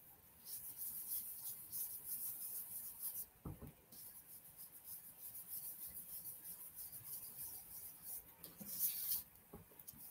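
Ink blending brush scrubbing ink onto cardstock in quick, faint, scratchy strokes, with a short pause and a soft knock about a third of the way in and another pause near the end.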